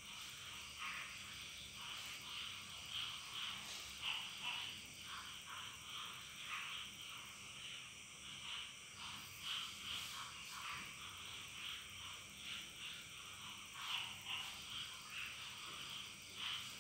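Faint chorus of frogs calling in the background: short, irregular croaks, several a second.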